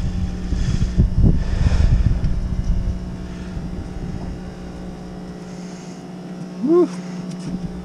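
Boat's engine running with a steady hum, under uneven low rumble of wind on the microphone that eases after about five seconds. A short pitched voice sound about seven seconds in.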